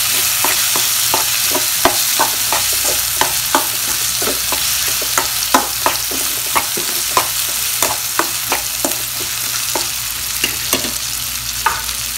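Chopped vegetables (carrot, beans, tomato, green chilli) sizzling in hot oil in a kadai over a raised flame: a steady frying hiss with frequent short clicks and crackles.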